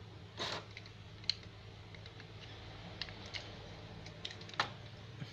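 Plastic joints of a Solar Saver transforming robot toy clicking as its legs are bent and turned by hand. A few scattered clicks with light handling noise, the sharpest about four and a half seconds in.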